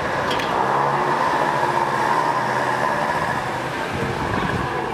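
A motor running steadily with a continuous hum, most like a nearby vehicle engine.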